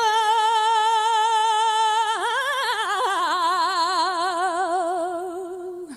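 A woman's copla voice holds one long sung note on the word "llevar". The note is steady for about two seconds, then takes on a widening vibrato as it slowly sinks in pitch, and breaks off just before the end.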